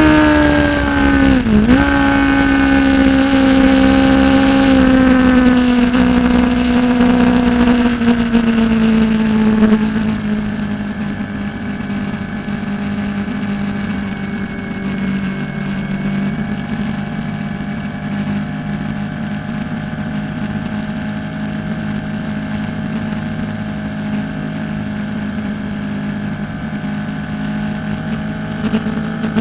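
600 cc supersport race motorcycle engine heard from its onboard camera at speed. The engine note falls slowly over the first ten seconds, with a quick dip and recovery about a second and a half in. It then holds a steady, slightly quieter pitch until the revs begin to climb again at the very end.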